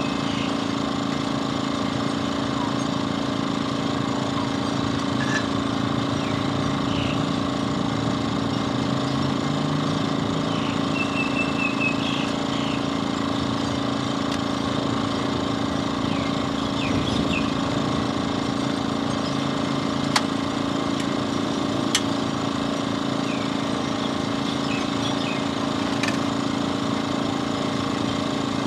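A motor running steadily, a constant even hum. Faint short high chirps come now and then, and a few sharp clicks sound in the second half.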